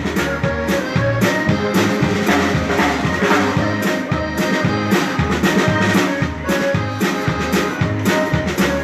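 Live music from a Texas Czech band: a drum kit keeps a steady beat under held, sustained notes from the melody instruments.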